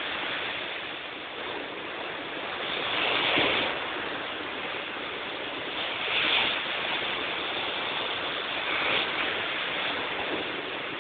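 Surf on a beach: a steady rush of waves, swelling louder every three seconds or so.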